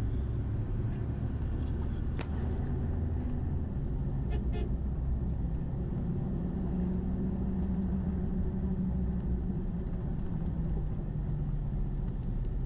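Steady low rumble of a car's engine and tyres, heard from inside the cabin while it drives along at a constant pace, with a few faint ticks.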